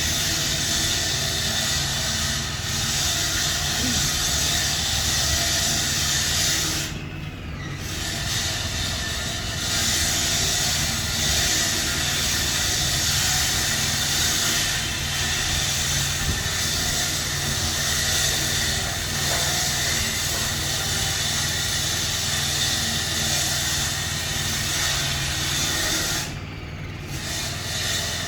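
Compressed-air paint spray gun hissing steadily, cutting out briefly twice as the trigger is let go.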